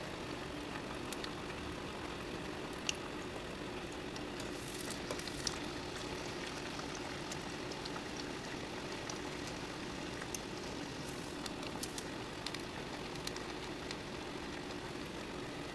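Cabbage and lentil vadas deep-frying in hot oil in a steel kadai: a steady sizzle with scattered pops and crackles.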